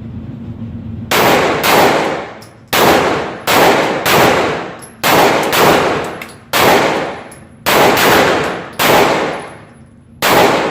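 Glock 9mm pistol firing a string of about a dozen shots, starting about a second in and spaced roughly half a second to a second apart, each shot followed by a decaying echo.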